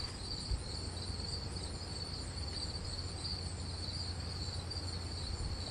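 Insects chirping steadily in a high, fast-pulsing trill, over a low steady hum.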